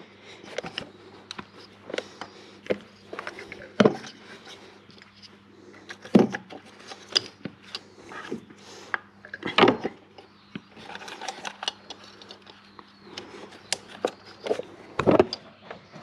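Irregular plastic clicks and knocks as ignition coils are handled and pushed back down into the spark plug wells of a 1UZ-FE V8, with a few louder knocks. A faint steady hum runs underneath.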